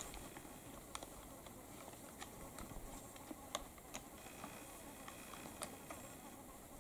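Faint, irregular clicks and clacks of two whitetail bucks' antlers knocking together as they spar, a sharp tick every half second to second and a half.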